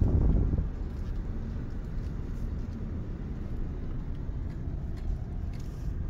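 Inside a car's cabin while driving slowly: a low, steady rumble of engine and road noise, louder for the first half-second.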